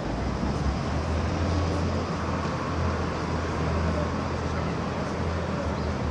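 City street traffic noise, with a heavy vehicle's engine rumbling low and steady close by.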